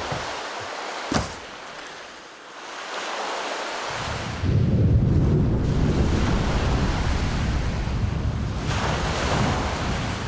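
Open-sea ambience of waves and wind, with a single sharp knock about a second in. About four seconds in, the sound turns suddenly louder and deeper into a heavy rumble of surf and wind.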